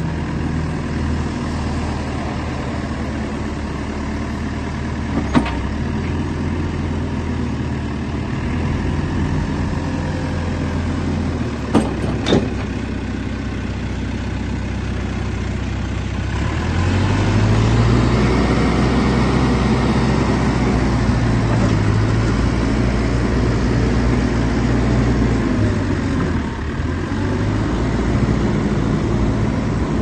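Fermec 860 backhoe loader's turbo diesel engine idling, with a few sharp clicks about a third of the way in. About halfway through the engine speed rises and stays up as the hydraulics are worked, lowering the rear support legs and moving the back actor.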